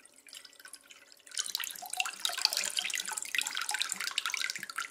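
Condensate water poured from a Pasapair dehumidifier's plastic collection tank into a glass bowl, the stream splashing into the water already in the bowl, heavier from about a second in.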